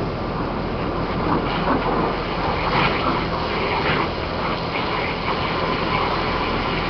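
Pressure washer running steadily while cleaning the boat: a constant motor hum under the hiss of water spray, which rises and falls in spells.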